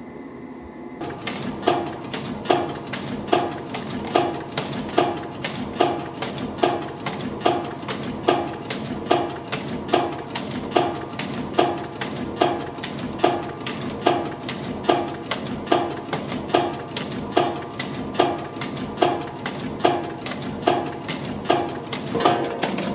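CNC wire bending machine forming 4.0 mm wire, starting its cycle about a second in after a low hum. It then runs in an even rhythm with a sharp metallic clack about every 0.8 s, one per formed part at roughly 70 parts a minute, and rapid clicking between.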